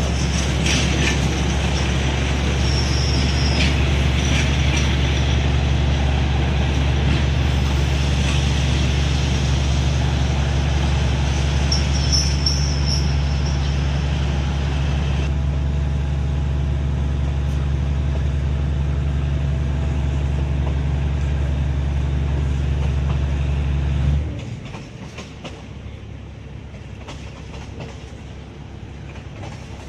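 A moving train heard from on board: a steady low drone under rail and wheel noise, which drops off sharply about 24 seconds in, leaving a quieter track rumble.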